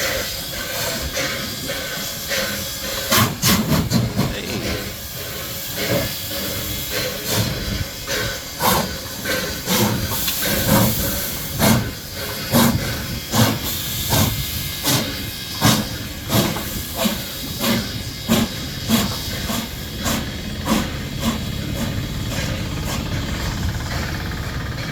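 NSW C32 class 4-6-0 steam locomotive 3265 starting a heavy train, with steady steam hiss throughout. About three seconds in comes a quick flurry of exhaust beats as the driving wheels slip, then sharp exhaust chuffs (bark) settle into a regular beat that slowly quickens as she pulls away and fades near the end.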